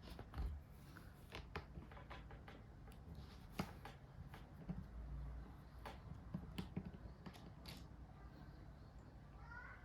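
Faint, irregular light clicks and taps of hands handling laptop parts during a RAM upgrade, over a low steady hum, with a short squeak near the end.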